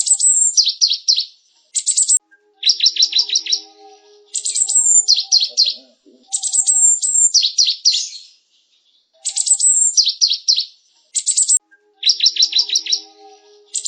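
Cinereous tit singing: bouts of quick, high, sharp notes repeated in short phrases, each bout about one to two seconds long, with brief pauses between them.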